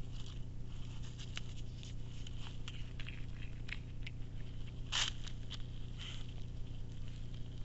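Irregular crackles, clicks and rustles of a white-tailed deer foraging in dry fallen leaves close to the trail camera, the loudest about five seconds in. A steady low hum runs underneath.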